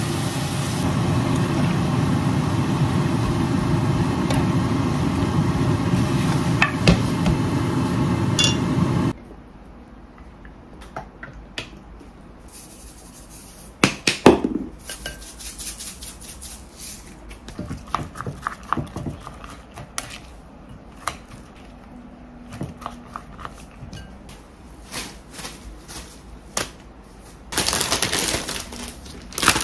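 Food sizzling loudly in a hot frying pan as rice syrup and soy sauce are poured in, stopping abruptly about nine seconds in. After that come quieter kitchen handling sounds: one loud knock with a short ring about midway, then a spoon clinking and scraping in a glass bowl of rice. A plastic bag rustles near the end.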